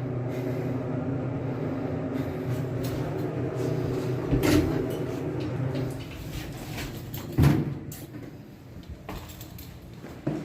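Elevator car humming steadily as it travels, with a knock partway through. The hum drops away after about six seconds, and a loud thud follows about a second later.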